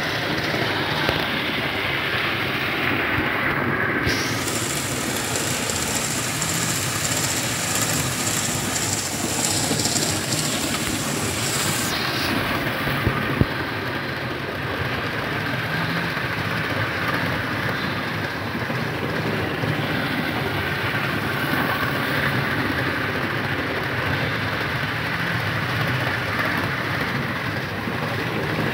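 Model Class 47 locomotive hauling Mk3 coaches round a model railway layout: a steady running noise of motor and wheels on the track, with one sharp click about halfway through.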